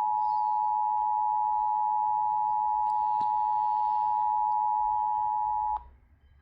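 Emergency Alert System attention signal: a steady two-tone alert tone, announcing a flash flood warning, that cuts off abruptly near the end.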